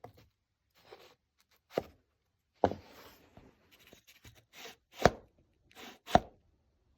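Woodworking bench sounds: four sharp wooden knocks with short scraping, shaving-like swishes between them, as a small piece of wood and a hand plane are worked against the screw plane stop on the workbench.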